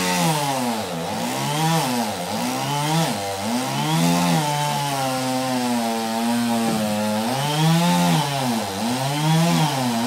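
Chainsaw running and revving up and down over and over, about once a second, held at a steady pitch for a couple of seconds in the middle.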